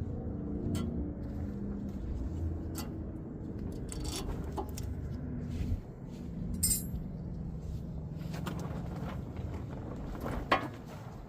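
Metal clinks and clicks as new brake pads are fitted into the front caliper bracket: a handful of separate sharp knocks over a steady low rumble.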